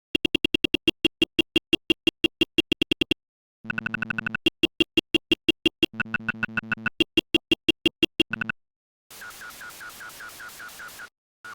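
STSpeech text-to-speech synthesizer glitching: instead of words it puts out rapid trains of buzzy electronic pulses, about nine a second, in several runs broken by short gaps, the pitch changing between runs. Near the end it switches to a hissy stretch with faint repeated pulses.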